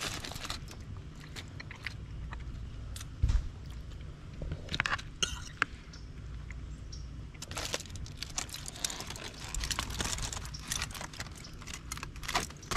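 Aluminium foil crinkling and rustling as a foil food packet is opened and handled, with scattered sharp clicks and one louder tap about three seconds in; the crinkling is densest from about eight to eleven seconds in.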